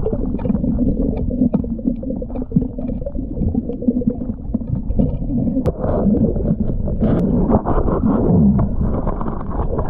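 Muffled underwater sound of someone diving: a continuous water rush and bubbling, with scattered small clicks.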